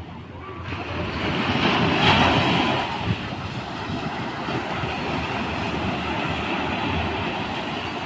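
Small ocean waves breaking on the beach and washing up the sand. The surf swells about a second in, is loudest around two seconds, then settles into a steady rush.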